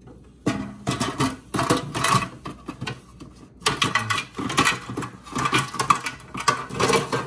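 Rapid mechanical rattling from a small machine, in two long stretches with a short break about halfway through.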